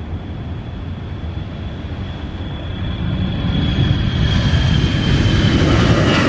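Narrow-body twin-engine jet airliner on its take-off run and lift-off from a wet runway, engines at take-off thrust. A steady rumble carries a high whine that slowly falls in pitch, and it grows much louder over the last few seconds as the jet passes.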